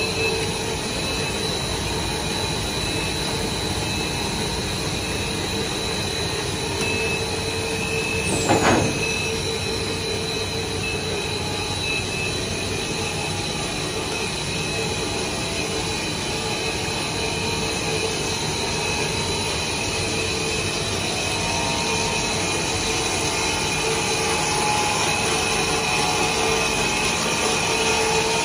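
A five-extruder cast stretch film line running: a steady machinery drone with a few held tones from its motors and winder. About a third of the way in there is one brief sharp noise with a falling whistle.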